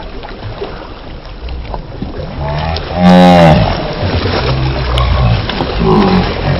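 Cow mooing, loudest about three seconds in, with a drawn-out call that rises and then falls in pitch.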